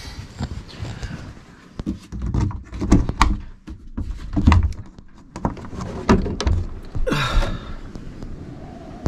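Knocks and thumps of a small sailboat's cabin hatch being worked from inside, with a longer scraping slide about seven seconds in as the hatch is pushed open.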